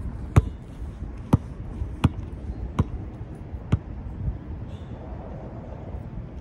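A basketball dribbled before a free throw: about six bounces roughly a second apart, which stop a little past the middle.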